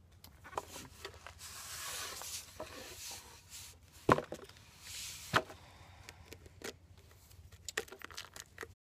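Cardboard rod shipping tube being handled and opened by hand: rustling and scraping, with a series of sharp knocks, the loudest two about four and five and a half seconds in.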